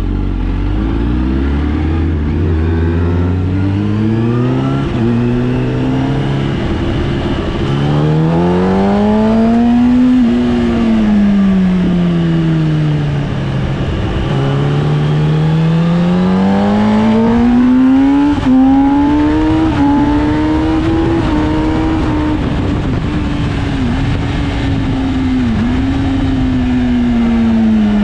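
Sportbike's inline-four engine on track: it revs up in quick steps through several upshifts in the first seven seconds, then the pitch rises and falls in long sweeps as the throttle is opened and closed, with two brief dips near the end.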